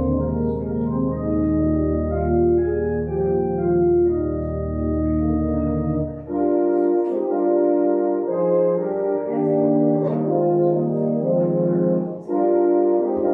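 Church organ playing sustained chords in slow phrases, with a deep pedal bass under the first half that drops out about halfway through; brief breaks between phrases about six and twelve seconds in.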